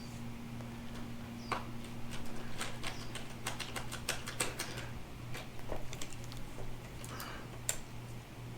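Irregular light clicks and taps of small screws and hand tools on the metal and plastic parts of a steering wheel being put back together, over a steady low hum.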